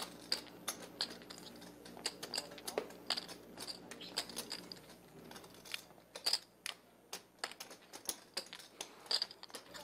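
Poker chips clicking together in light, irregular clicks, a few a second, as a player handles chips at the table, over a faint steady low hum.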